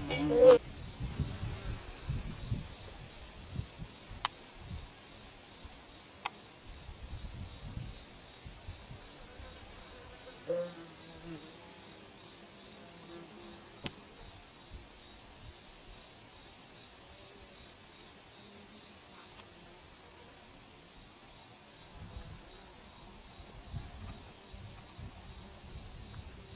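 Insects chirping: a steady, evenly pulsing high chirp over a thin continuous high tone, with intermittent low rumble underneath.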